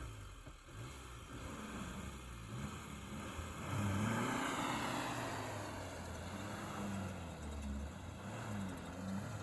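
Suzuki Samurai engine revving up and down repeatedly, louder from about four seconds in, as the 4x4 tries to drive out of deep snow it is stuck and sinking in.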